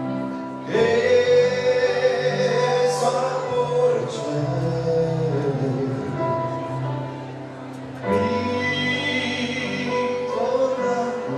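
Live band music with a lead singer over sustained chords. The singing comes in about a second in and again about eight seconds in.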